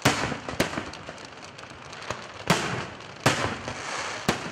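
Aerial fireworks shells bursting: about five sharp bangs, the loudest at the very start, each dying away over a second or so.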